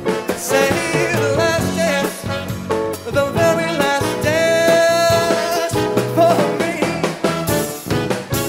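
Live swing band playing an up-tempo number, with drum kit, saxophone and electric guitar, and one long held note in the middle.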